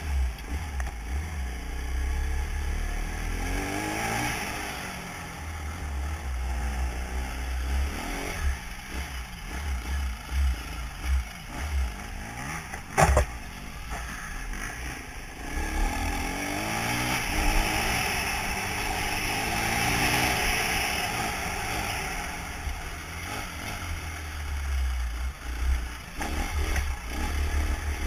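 Trail motorcycle engine running under way, revving up and easing off as it is ridden, heard from the rider's helmet camera with heavy low rumble. A single sharp knock about halfway through.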